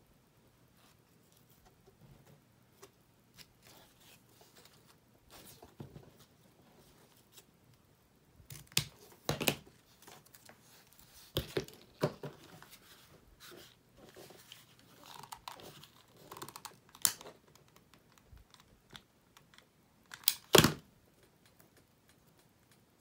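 Ribbon and craft tools being handled on a cutting mat: soft rustling with scattered clicks and knocks, the loudest a pair of sharp knocks near the end.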